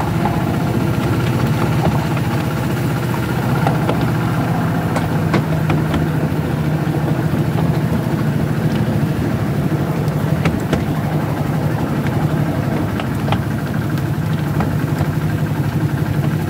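Engine of a 0-4-4 diesel-hydraulic miniature locomotive running steadily as it hauls the train along the track, with scattered sharp clicks from the wheels on the rails.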